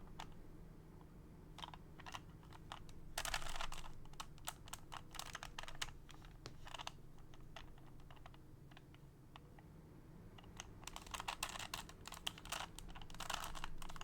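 An original Rubik's Cube (not a speed cube) being turned by hand: quick plastic clicking as its layers rotate, in several flurries with short pauses between.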